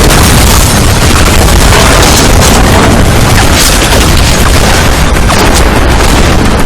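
Loud, continuous explosions and booms from an action film's battle sound mix, with sharp impacts scattered through and music beneath.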